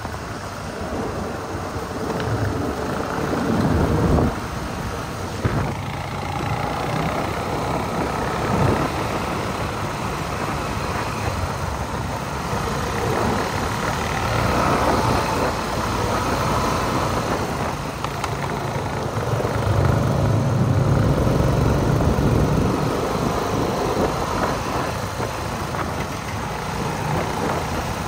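ATV engines running, their revs rising and falling several times.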